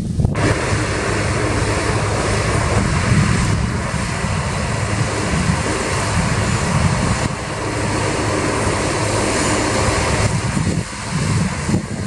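New Holland CX860 combine harvester working in wheat: a loud, steady engine drone under a broad rushing noise from the threshing machinery.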